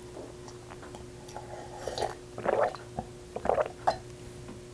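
Close-up mouth sounds of someone drinking water from a glass: a few short swallowing gulps, starting about two seconds in.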